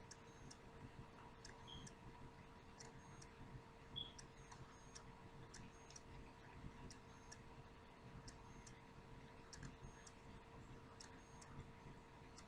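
Near silence: quiet room tone with faint ticking roughly once a second and a low steady hum.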